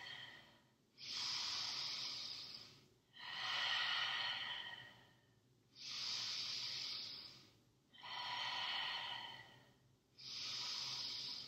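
A woman breathing slowly and audibly through a held yoga pose: about five long breaths of roughly two seconds each, with short pauses between.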